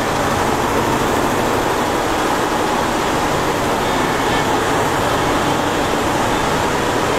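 Multi-head embroidery machines running in a factory hall: a loud, steady mechanical noise with no breaks.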